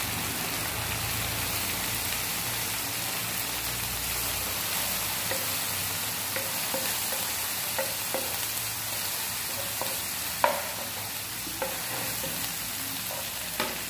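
Sliced onions and chillies frying in oil in a non-stick pan, a steady sizzle, while a wooden spatula stirs them. A few sharp knocks, the loudest about ten seconds in.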